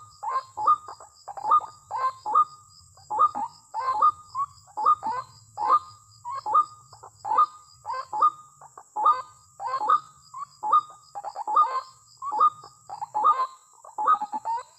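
White-breasted waterhen calls: an unbroken series of short, loud calls, about two a second, over a steady high hiss.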